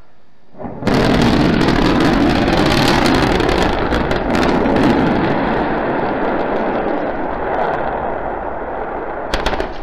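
Starship SN9 prototype rocket exploding as it crash-lands: a sudden loud crackling roar begins about a second in and slowly fades. A couple of sharp cracks come near the end.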